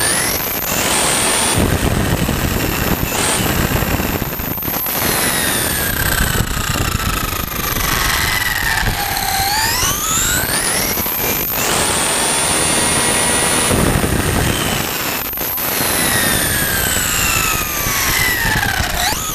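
Onboard sound of a 1/5-scale FG Audi RS5 4WD RC car on 8S LiPo power: the electric motor and drivetrain whine climbs steeply in pitch as the car accelerates, holds high at top speed, then glides down as it slows, twice over. Steady tyre and road rumble runs underneath, and the whine starts climbing again at the very end.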